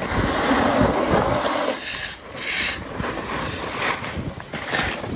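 Snowboards sliding over hard, scraped snow: a steady gliding hiss for the first couple of seconds, then several short, sharp edge scrapes.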